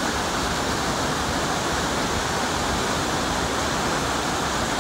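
Fast mountain stream rushing and splashing over rocks in small rapids, a steady, unbroken rush of water.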